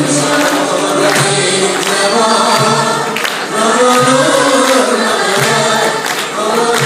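Andalusian music ensemble performing live: a choir of voices singing a flowing melody together over the ensemble's instruments, with sharp beats marking the rhythm about once a second.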